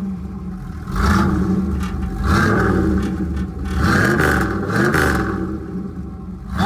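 Third-gen Chevrolet Camaro with a new 350 V8, its exhaust note rising and falling as the engine is revved hard in about four surges.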